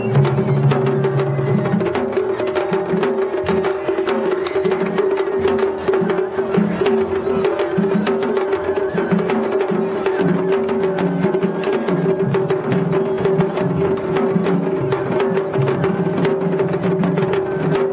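Japanese festival float music: taiko drums beating a quick, even rhythm under a steady held note, with many sharp clicks.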